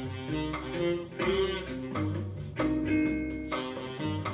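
Recorded music, with plucked guitar notes over bass and light percussion, played back through AER full-range drivers on open-baffle speakers driven by a 300B tube amplifier, as heard in the room.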